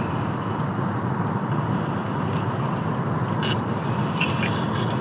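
Steady low rumbling outdoor noise, with a few faint short high chirps and ticks about three and a half and four and a half seconds in.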